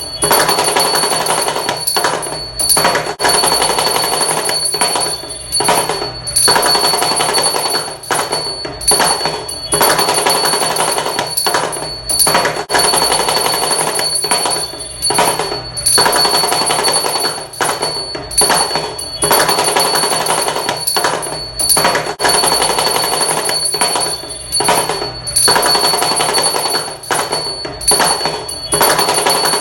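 Damru, the small hourglass-shaped hand drum, rattled fast in rolls that break off briefly every second or two. A thin, steady high tone runs over it.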